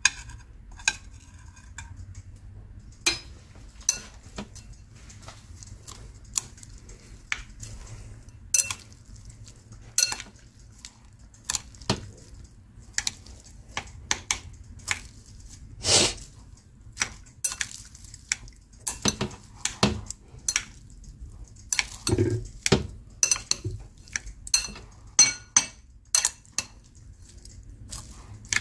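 Utensil knocking and clinking against a bowl as instant noodles are tossed and mixed, in irregular sharp clicks that come thicker in the second half, over a low steady hum.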